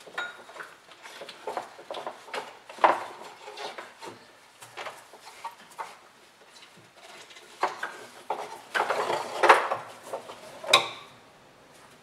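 Metal hand tools (socket, extension, ratchet) clinking and knocking against each other and against engine parts: scattered irregular clicks and clanks, with a busier run of louder ones between about eight and eleven seconds in.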